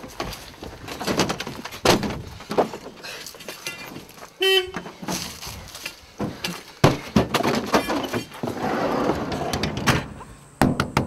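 Knocks, bumps and scuffling against a van's door and body as people force their way in and climb inside. There is one short horn-like toot about four and a half seconds in.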